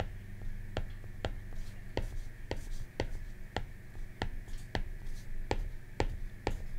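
Stylus tip tapping and sliding on a tablet's glass screen while branches and letters are drawn: a string of light, sharp clicks, roughly two a second at uneven spacing, over a faint low hum.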